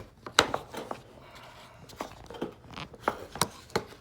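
A series of sharp plastic clicks and knocks as the cabin air filter housing is pushed into place and its plastic clips are snapped in. The loudest comes about half a second in, another near three and a half seconds.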